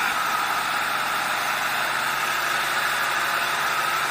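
Steady hiss of heavy rain falling on and around a fishing boat.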